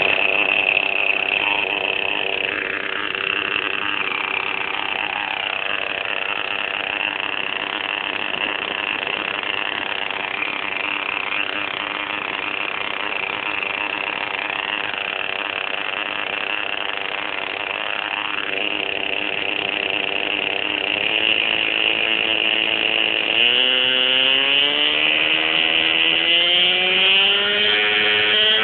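Hirobo Shuttle RC helicopter's small glow engine running close to the onboard microphone, a steady idle with a high whine. About three-quarters of the way in it speeds up, its pitch rising steadily and the sound getting louder as the rotor spools up.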